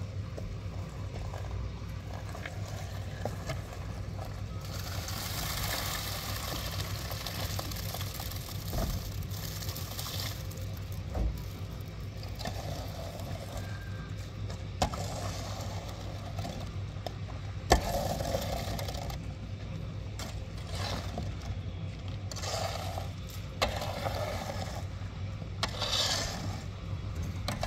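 Wet concrete scraped and spread over steel beams with a long-handled tool, in repeated strokes of a second or two, over a steady low hum, with a few sharp knocks.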